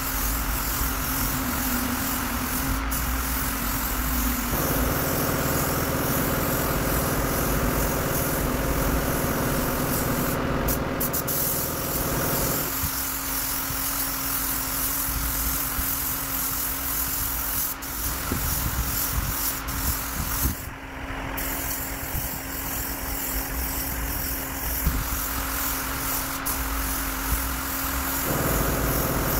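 Gravity-feed spray gun hissing steadily with compressed air as colour paint is sprayed onto a bus side panel, over a steady low hum. The hiss breaks off briefly a little past two-thirds through.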